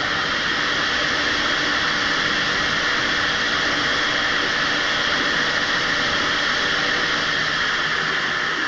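Lathe running at a constant speed with a GoPro camera spinning in its chuck: a loud steady rushing noise with a constant whine from the machine, heard through the spinning camera's microphone.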